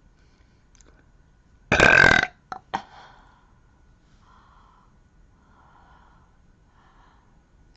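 A girl burping once, loud and about half a second long, followed at once by two brief, much quieter sounds.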